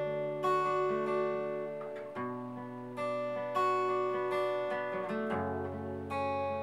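Acoustic guitar playing a slow picked chord intro, its notes struck one after another and left ringing, with a new chord every second or so.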